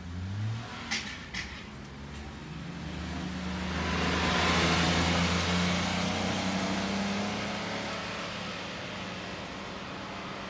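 A car passing close by: engine hum and tyre noise build to a peak about four to five seconds in, then fade away. Two short clicks sound about a second in.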